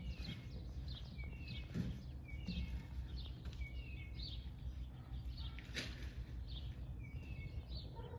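Small songbirds chirping over and over, a few short high notes each second, over a steady low rumble. There is one sharp click about six seconds in.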